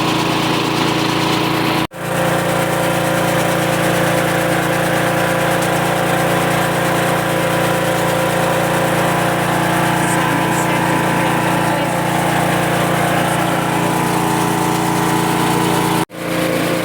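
Small stationary diesel engine running steadily at a constant speed, as used to drive a fodder chopper. The sound cuts out abruptly twice, briefly each time.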